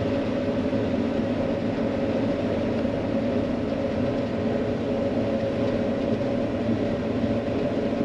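John Deere 9500 combine running steadily while harvesting wheat, a constant machine drone with a low rumble and a steady hum.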